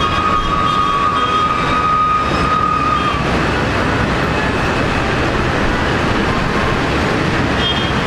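Jet engines of a taxiing Ilyushin Il-76TD, its four Soloviev D-30KP turbofans at low power: a steady roar with a high whine that fades out about three seconds in.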